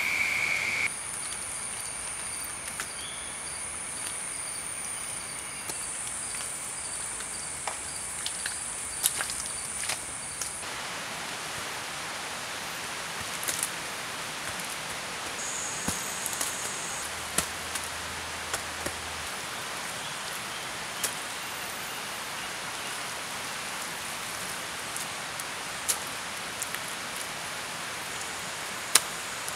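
Tropical forest ambience: a steady hiss with insects calling in high, steady tones that come and go, and scattered short clicks and knocks.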